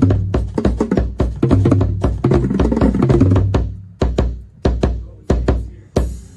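Drum corps battery of snares, tenors and pitched bass drums playing a fast, dense passage that thins into spaced unison accents after about three and a half seconds and ends on one final hit near the end.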